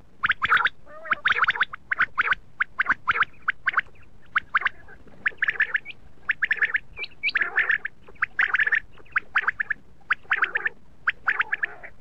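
Common quail calling over and over: quick clusters of short, sharp notes, one cluster after another with brief gaps.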